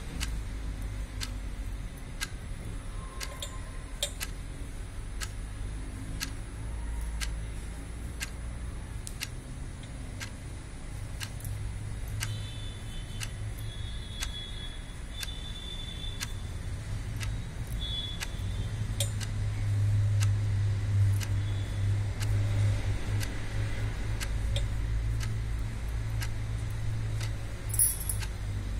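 Steady, regular ticking, a little faster than once a second, over a low rumble that grows louder in the second half. Near the end comes a short metallic jingle of bangles as a hand reaches across.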